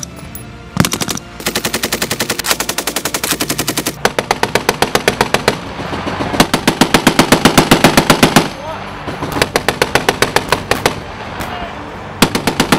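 Machine-gun fire in long, rapid bursts of roughly nine or ten shots a second, loudest in the middle, easing briefly before a final burst near the end.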